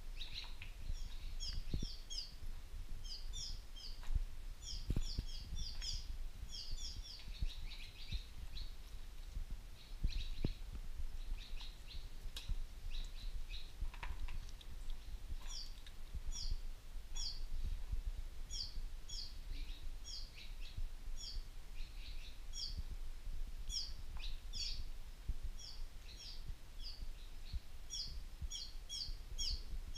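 High chirping calls, short falling notes repeated several a second in runs and pausing now and then, over a low steady rumble with a few soft knocks.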